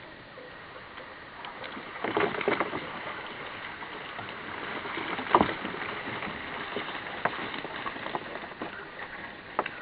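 Crisp deep-fried grasshoppers sliding off a pan onto a wooden cutting board: a dry, crackly rustle and clatter of light crunchy bodies starting about two seconds in, with scattered clicks and one sharper click near the middle.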